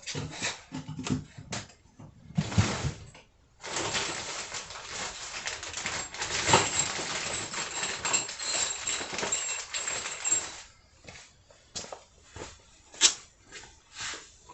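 Irregular metal knocks and clanks as a motorcycle's rear axle is forced out with more persuasion. Then a steady hiss lasts about seven seconds. Scattered clicks follow, with one sharp knock near the end.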